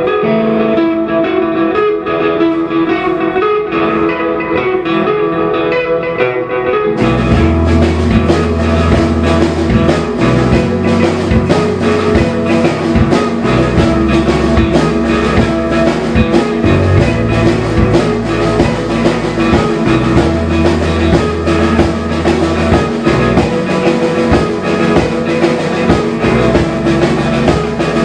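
Live rock band playing. For the first seven seconds an electric guitar carries a picked figure with little low end; then drums and bass guitar come in together and the full band plays on with a steady beat.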